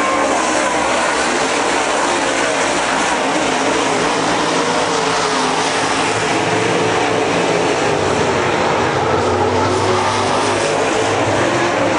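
Several dirt late model race cars' V8 engines running at speed around a dirt oval, a loud, steady blend of engine notes.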